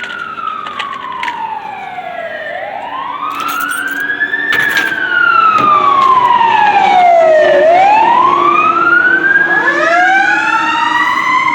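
Fire engine sirens wailing, each sweep rising and falling slowly over about three seconds and growing louder as they near. A second siren joins out of step near the end.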